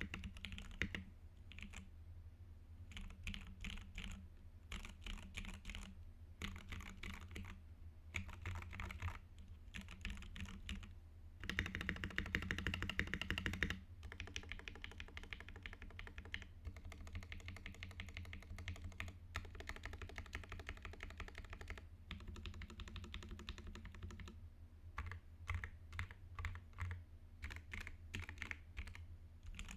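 Typing on a UTD 360C mechanical keyboard with lubed Everglide Crystal Violet switches in an aluminium plate, with GMK keycaps and lubed GMK screw-in stabilizers. The keystrokes come in bursts with short pauses between them, and there is a faster, louder run of typing about twelve seconds in.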